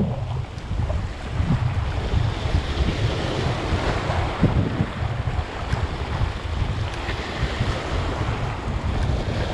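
Sea surf breaking and washing over shoreline rocks, with wind buffeting the microphone in irregular low gusts.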